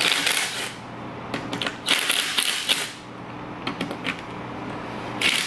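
Cordless power driver running in short bursts as it backs the bolts out of a wheelchair gearbox cover, with a few short clicks of metal parts near the end.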